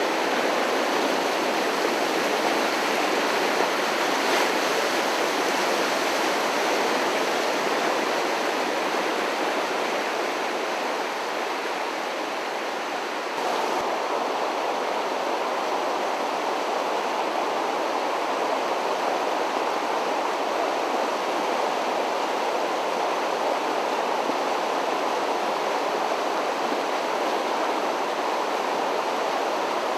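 Floodwater of a swollen creek rushing steadily, a continuous, loud noise of fast-moving water.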